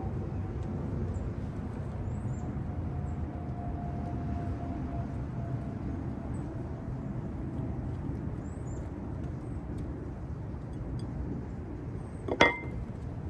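Steady low outdoor background rumble with a few faint high chirps. Near the end, the squirrel's head at the peanut butter knocks the white plate once: a single sharp clink with a brief ring.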